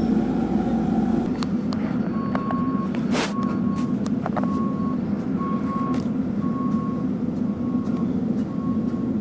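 Diesel engine running steadily, heard from inside an excavator cab, with a plant machine's motion alarm beeping at one pitch, a little more than once a second, starting about two seconds in. A sharp click comes about three seconds in.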